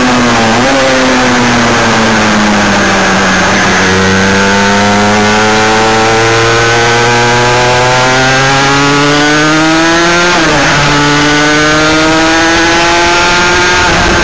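Motorcycle engine heard from onboard at speed. Its pitch falls as it slows for a bend, then climbs steadily under acceleration. A short break about ten and a half seconds in marks an upshift, after which the pitch climbs again.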